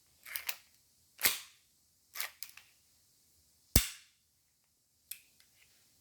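Sharp clacks of an airsoft pistol's slide and recoil spring assembly being handled and pushed back on: about five separate clacks, the loudest near four seconds in.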